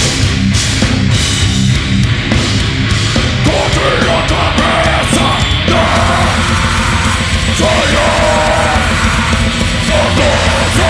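Live heavy metal band playing: distorted guitars, bass and pounding drums, with harsh yelled vocals in Portuguese coming in about a third of the way through.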